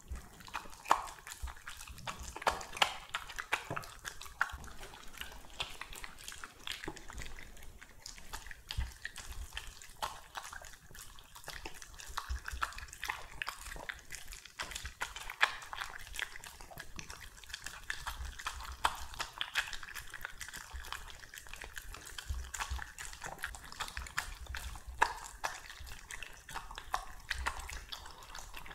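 An Italian greyhound eating raw minced meat from a steel bowl: wet, irregular smacking and chomping, a quick run of clicks and slurps with no pause.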